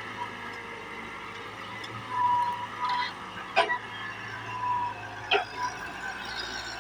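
Excavator working: the engine runs steadily, with a few short high-pitched squeals and two sharp metal clanks.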